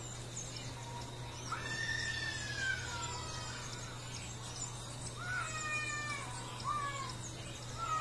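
Acorn woodpecker calling: a long call falling in pitch about a second and a half in, then two shorter falling calls from about five seconds on.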